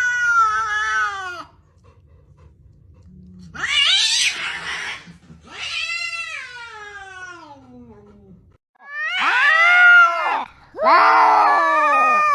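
Domestic cats meowing and yowling: five long, drawn-out calls with short gaps between, most sliding down in pitch as they end, one about four seconds in harsher and rougher than the rest.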